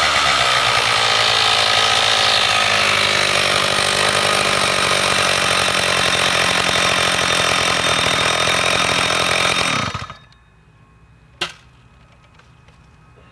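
Stihl 056 two-stroke chainsaw with a 36-inch bar running steadily out of the cut, then switched off about ten seconds in, the engine dying away within a second. A single sharp click follows shortly after.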